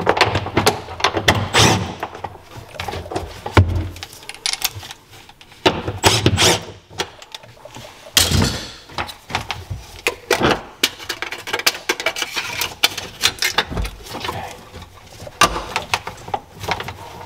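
Short irregular bursts from a cordless ratchet and sharp clinks of metal tools and sockets, as the engine mount bolts are loosened.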